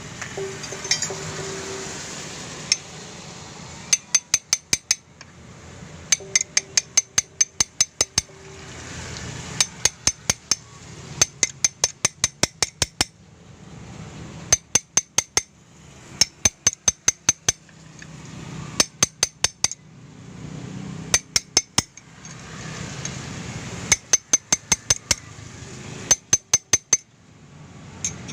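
Hammer tapping on metal in quick runs of five to eight sharp, ringing strikes, a new run every second or two, as parts are tapped into place during a scooter CVT repair.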